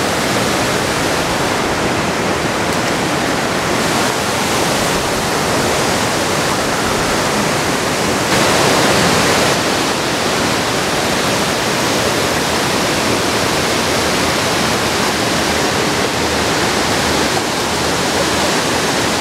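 Steady rushing of flowing creek water, growing a little louder for about a second near the middle.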